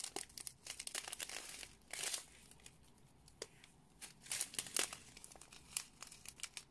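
Thin plastic bags of diamond-painting drills crinkling as they are handled and spread out: irregular crackles, busiest about a second in and again around four to five seconds in, quieter between.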